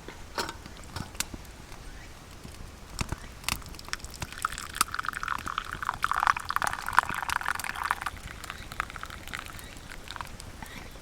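Liquid being poured for about four seconds in the middle, with scattered light clicks and knocks before and after.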